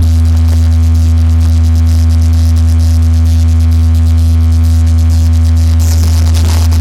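DJ sound system playing a loud, steady deep bass tone with fainter higher tones above it, held unchanged, as in a sound-check track.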